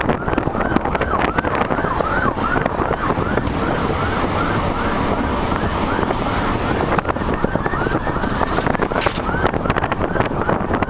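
Police siren in yelp mode, quick rising sweeps about three a second, over heavy wind buffeting on the microphone in the open bed of a moving pickup truck.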